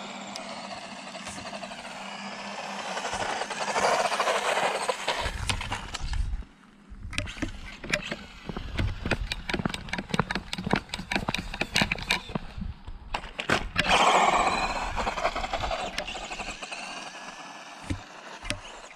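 Tamiya DT-01 RC buggy's brushed Silver Can motor and gears whining at full throttle, swelling and fading twice with the pitch bending as it passes close by. In between comes a run of sharp clattering knocks.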